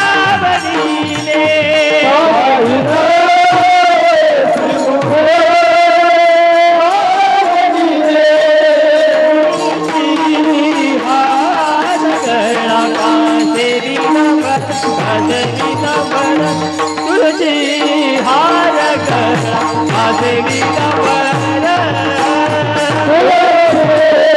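Devotional bhajan music: a singer holds long, wavering melodic lines over a steady drone, with hand percussion and jingling strokes keeping time.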